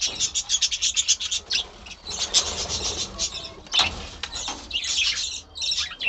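A flock of budgerigars chirping rapidly and continuously, with wings flapping as the birds scatter from a catching net. A single knock sounds about midway through.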